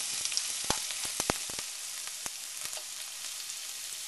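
Minced ginger sizzling in hot vegetable oil in a wok, a steady high hiss, as it is stirred with a spoon, with a few sharp clicks in the first half.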